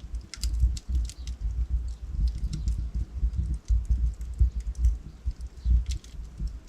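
Wood logs burning in a fireplace: a steady low rumble of flame under sharp crackles and pops of firewood, bunched near the start and again near the end.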